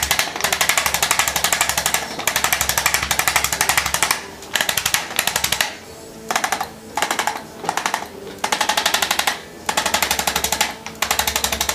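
Handheld electric chiropractic percussion instrument hammering rapidly against the upper back and neck, running in long runs at first, then in shorter bursts with brief pauses.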